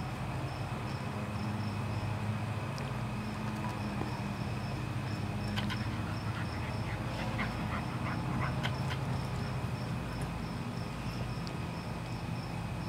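A steady low drone like a distant motor, with a faint high chirp pulsing about three times a second, and a scatter of short, high clicks and chirps about six to nine seconds in.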